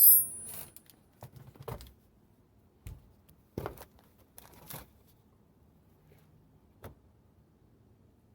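Hands working on a car's brake bleeder with tools and parts: a sharp metallic clink with a brief ring at the start, then scattered light clicks, taps and rustles a few seconds apart.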